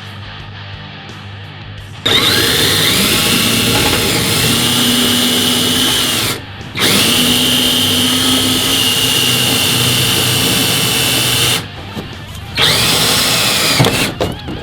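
Power drill running in three bursts, each spinning up with a rising whine that then holds steady. The first two bursts last about four to five seconds each, and the last is shorter.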